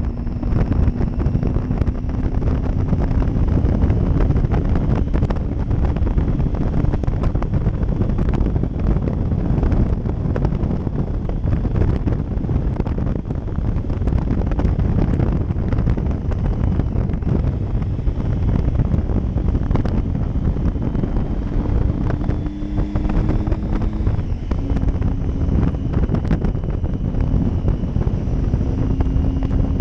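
Wind buffeting the microphone over a Triumph Tiger 800 XCx's three-cylinder engine running at road speed. The engine note drifts slowly higher and shifts a few times, with the throttle eased and opened through the bends.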